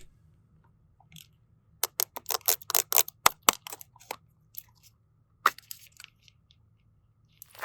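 Close-up ASMR crunching: a quick run of sharp crackles about two seconds in, then a few more scattered crackles near six seconds.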